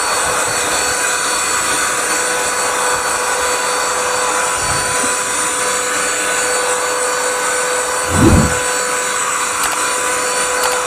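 Handheld USB-rechargeable mini vacuum cleaner running steadily, a high motor whine over the rush of its suction. A brief low thump about eight seconds in.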